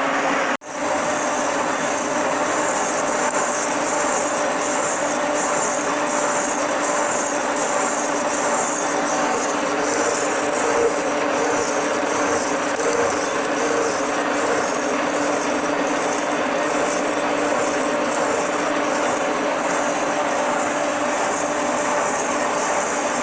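Milling machine cutting a steel blank, a steady grinding run of the cutter through the metal with a constant hum from the machine. The sound drops out for an instant about half a second in.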